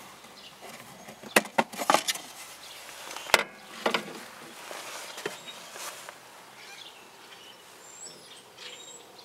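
Metal air cleaner lid being taken off a carburetor and handled: several sharp clanks and knocks in the first four seconds, the loudest a little over three seconds in, then quieter scattered handling sounds.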